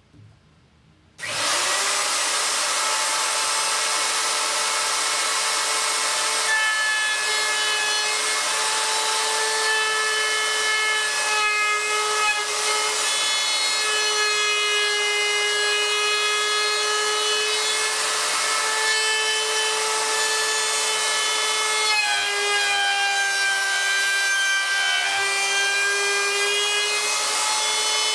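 Handheld trim router with a flush-trim bit, switched on about a second in and then running at a steady high whine while it trims a tapered wood edge flush. Its pitch drops a little about two-thirds of the way through.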